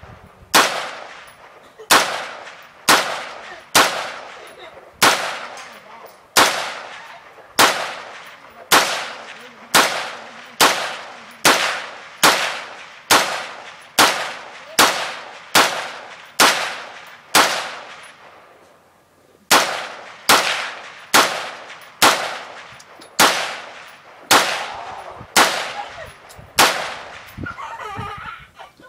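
Bushmaster M4-type 5.56 mm rifle fired in steady semi-automatic shots, roughly one to two a second, each crack trailing off in a short echo, with one pause of about a second and a half partway through.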